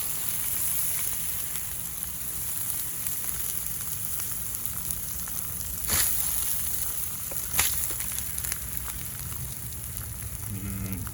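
Burning melted plastic from a box fan sizzling with a steady hiss as the fire is doused, with a couple of sharp pops about six and seven and a half seconds in.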